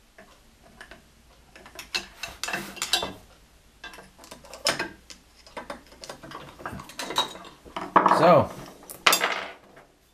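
Screwdriver working the handle screws out of a cast-iron bench plane (Juuma No. 6), giving scattered metallic clicks, scrapes and clinks as the tool and the loose screws are handled against the iron body.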